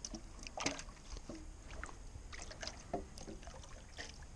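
Water sloshing in a handheld clear plastic container, with short splashes and knocks, as the container is lowered and tipped out into the river shallows near the end. A low steady rumble lies underneath.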